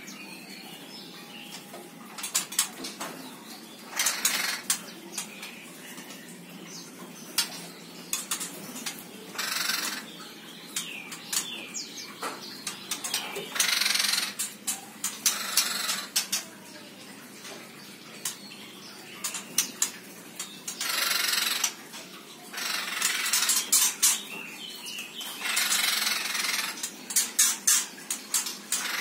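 Laughingthrushes in an aviary giving loud, harsh bursts of chattering, each about a second long and repeated every few seconds, with faint thin whistled notes between the bursts.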